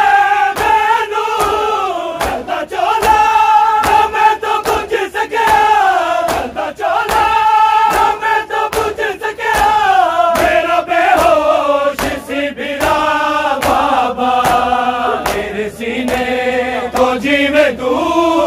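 A crowd of mourners chants a Punjabi noha lament in long, drawn-out notes. Hands slap on bare chests in a steady beat, the rhythm of matam.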